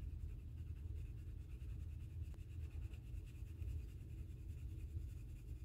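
Faint scratching of a soft-core colored pencil shading back and forth on paper as a swatch box is filled in.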